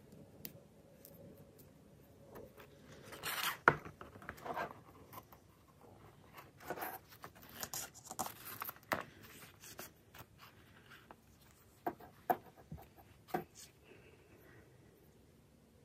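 Faint handling of a leather notebook cover and its elastic band: rubbing and scraping of leather and paper, broken by scattered sharp clicks, the sharpest about four seconds in and a few more near the end.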